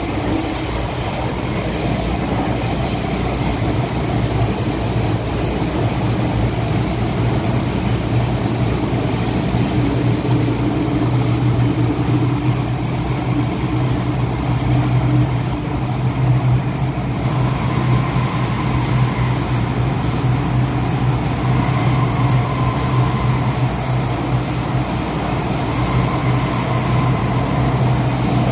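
Inside an MTR M-Train car running through a tunnel: the steady rumble of wheels and running gear, with a strong low hum throughout and faint higher tones entering after the middle.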